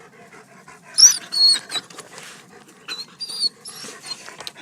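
Young German Shepherd giving short, high-pitched whines, about a second in and again around three seconds, with faint panting between them.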